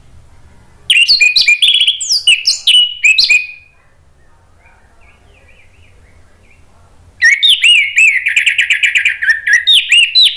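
Orange-headed thrush singing in two loud bursts of rapid, varied whistled phrases and trills, the first about a second in and lasting under three seconds, the second starting about seven seconds in.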